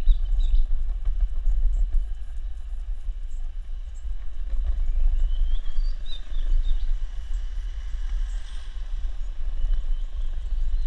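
Steady low rumble of a skateboard's wheels rolling over paved road, mixed with wind buffeting an action-camera microphone. Short high chirps come through at the start and again around six seconds in.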